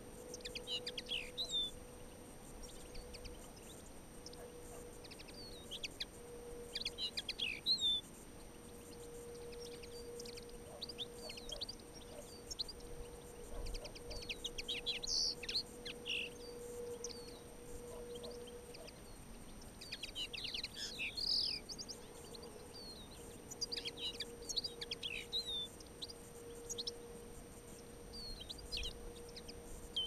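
Small songbirds giving short high chirping calls in clusters every few seconds, over a faint steady hum.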